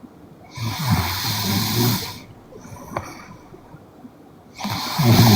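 A young woman snoring in her sleep: two snores about four seconds apart, each a low, rattling rumble lasting about a second and a half, with quiet breathing between them.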